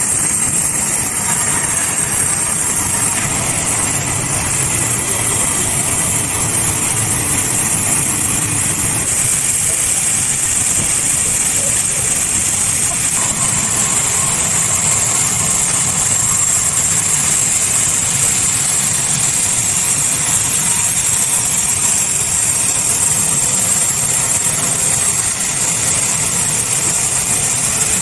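Sawmill running steadily while sawing a log: a constant machine noise with a low rumble and a high, hissing blade band, unchanged throughout.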